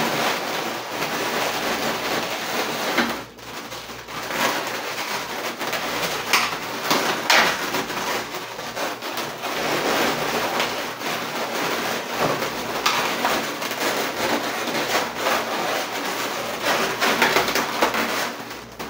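Inflated latex 260 twisting balloons rubbing against each other and against the hands as a balloon bouquet is handled and adjusted: a dense, continuous rubbing crackle with a short lull about three seconds in.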